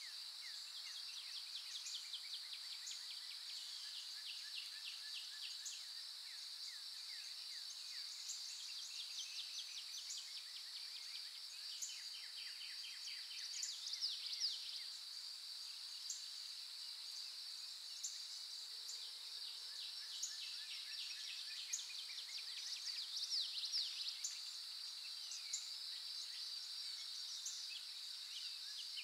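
Outdoor ambience: a steady high-pitched insect drone, with frequent runs of quick falling chirps from birds.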